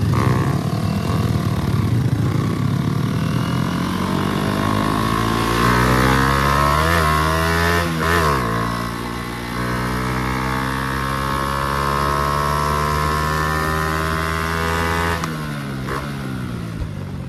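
Honda 110i single-cylinder four-stroke motorcycle engine, bored out with a 56 mm piston, under full throttle on the road: the revs climb, dip briefly about eight seconds in, climb again and hold high. About fifteen seconds in the throttle is closed and the engine note falls away.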